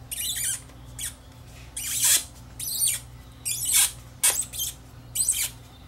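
Hard plastic of an Oral-B Triumph electric toothbrush squeaking and scraping in about seven short bursts as its bottom cap is worked with the triangular unlocking tool, over a faint steady hum.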